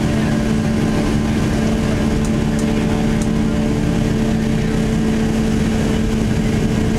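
Boeing 757-200 jet engines running at low taxi power, heard from inside the passenger cabin: a steady hum with low droning tones that holds level throughout.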